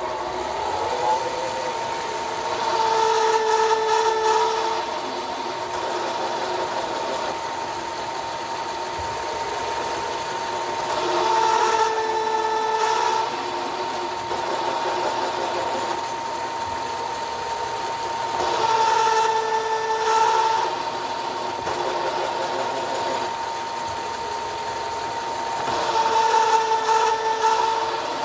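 Bridgeport milling machine running with a Procunier tapping head, tapping 3/8-inch holes in 5/8-inch aluminum plate: a steady whine throughout, with four louder spells of a couple of seconds, about every seven to eight seconds, as each hole is tapped.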